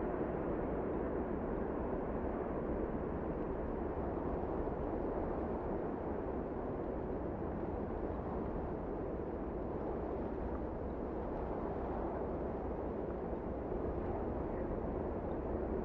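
Storm sound effect: strong wind blowing as a steady low rumble, with no separate thunderclaps.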